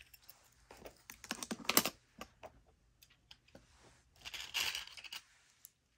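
Small metal jewelry pieces being handled and set down: light clicks and taps in two short clusters, one about a second in and another near the fifth second.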